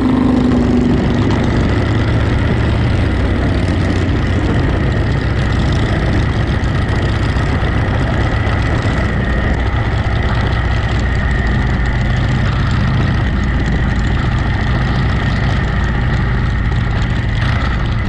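Harley-Davidson Shovelhead V-twin motorcycle engine running steadily under way on a gravel road, with a steady hiss of wind and road noise over it.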